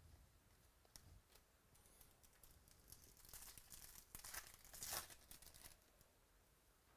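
Faint crinkling and tearing of a foil trading-card pack wrapper being ripped open and handled, a string of rustles in the second half that is loudest just before the end.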